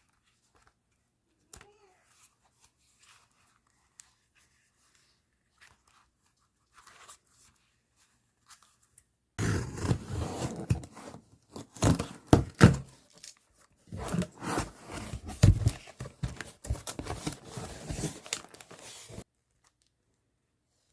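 Stationery packaging being torn open and crinkled by hand: faint taps and handling at first, then about ten seconds of loud tearing and rustling starting about nine seconds in, which stops abruptly.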